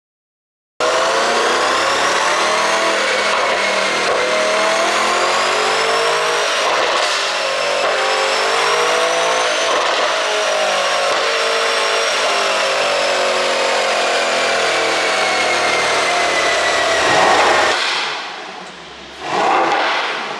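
Twin-turbo V8 of an ECU-tuned Mercedes-AMG GT 63 S held at high revs, its pitch drifting slowly up and down. About 18 s in the revs fall away, then it revs up briefly once more.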